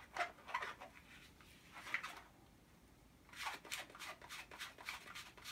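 A small latex round balloon being twisted in half by hand, with faint rubber squeaks and rubbing in short spells: around the start, about two seconds in, and more often from about three and a half seconds on.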